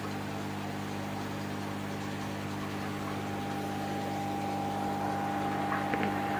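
Steady mechanical hum and hiss of running aquarium equipment. A higher steady tone joins about halfway through, and a few faint clicks come near the end.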